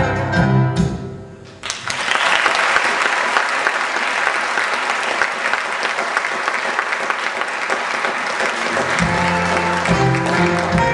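A choir and band finish a song, and about two seconds in a theatre audience breaks into loud, sustained applause. Near the end the band starts playing again under the clapping.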